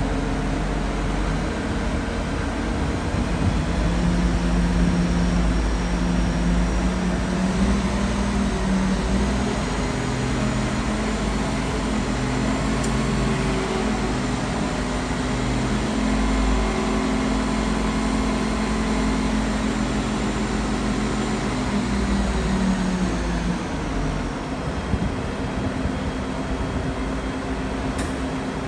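Heavy machinery engine running steadily, a continuous mechanical drone whose tones shift in pitch as the load changes. It drops back a little near the end.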